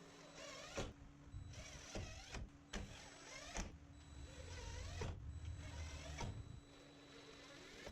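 Power drill driving screws: about six short runs of the motor, its pitch rising and falling with the trigger, several ending in a sharp click as a screw seats.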